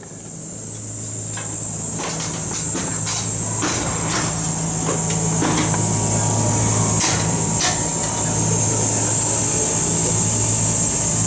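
Workshop ambience in an aircraft restoration hangar: a steady low machine hum and a high whine, with scattered metal taps and clicks from tools on the airframe.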